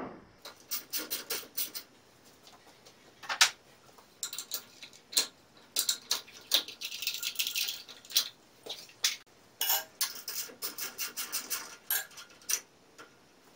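Hand ratchet wrench clicking in quick runs as nuts and bolts on a steel machine cabinet are turned out, with scattered sharp metal clinks.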